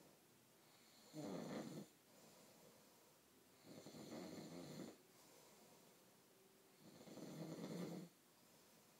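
A man snoring faintly: three snores, each about a second long, coming roughly every three seconds.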